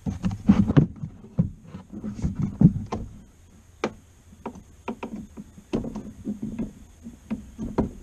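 Plastic air intake duct on a 2000 Chevrolet Silverado being wiggled and pulled off by hand: hollow plastic knocks, clicks and rubbing. The knocking comes thickest in the first few seconds, then turns to scattered clicks.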